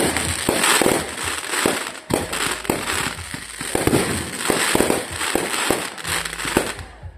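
Aerial fireworks going off in a dense, irregular string of bangs and crackles that thins out near the end.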